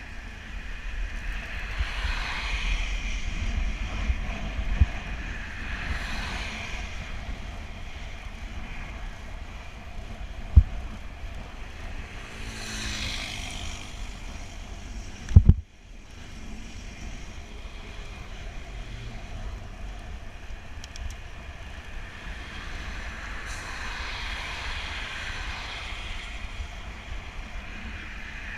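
Motor vehicles passing one after another on a wet road, each a hiss of tyres that swells and fades, over a low wind rumble on the microphone. There are a few sharp knocks, the loudest about two-thirds of the way through.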